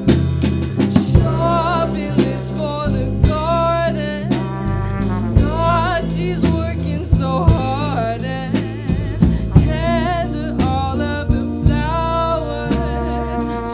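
A live band playing a song: a woman singing with vibrato over hollow-body electric guitar, electric bass and a drum kit keeping a steady beat.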